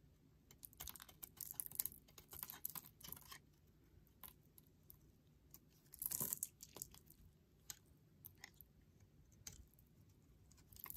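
A utility knife blade shaving and cutting a bar of black charcoal soap: crisp scraping and crackling in short clusters as thin pieces break away, with the loudest crackle about six seconds in.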